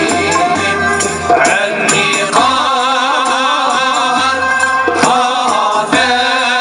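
Moroccan Sufi samaa and madih ensemble: a group of voices singing a sustained, wavering devotional line over a steady beat of hand percussion.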